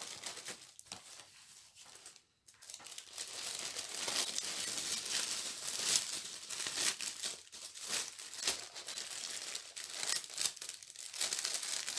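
Clear plastic bag crinkling and rustling as an item is slid back into it: a dense run of crackles that starts about two and a half seconds in.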